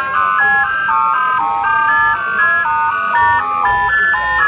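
Live electronic music: beeping synthesized tones, two or three at once, jumping to new pitches about four times a second in a high register, with a faint falling glide underneath near the end.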